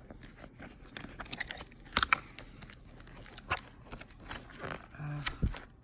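Crinkling and rustling as a new leather handbag and its wrapping are handled, with several sharp clicks, the loudest two about two seconds in.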